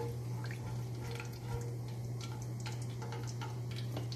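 Whole spices (cumin seeds, cardamom pods and cloves) crackling in hot oil in a wok, with scattered small pops and ticks as a spatula stirs them. A steady low hum runs underneath.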